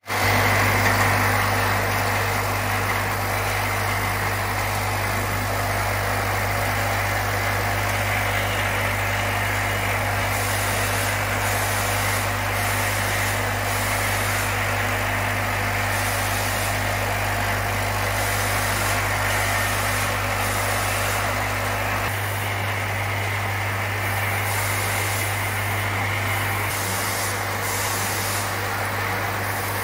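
Automatic cartoning machine running, with its tube-feeding bowl and conveyor: a steady low hum over continuous mechanical noise.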